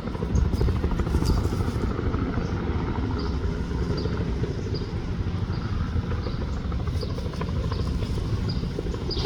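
Bell 206 helicopter running: a steady low rumble that holds without a break.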